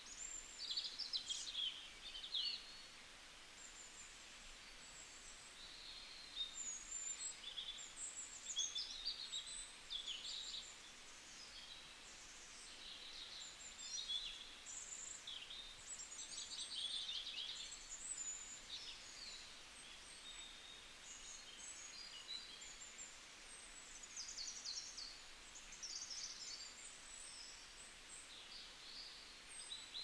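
Weaver birds chattering: a busy run of short chirps and buzzy, sizzling trills that come in quick spells with short pauses between them, over a soft steady hiss.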